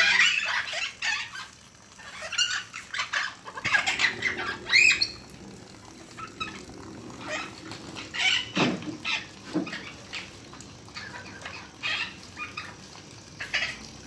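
Parrot squawking and chattering in short, pitch-bending calls, busiest over the first five seconds with a rising squeal about five seconds in, then fainter scattered calls.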